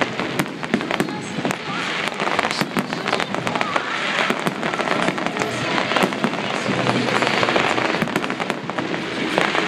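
Fireworks display: aerial shells bursting into gold crackling stars, a dense, continuous crackle of many small pops with louder bangs among them.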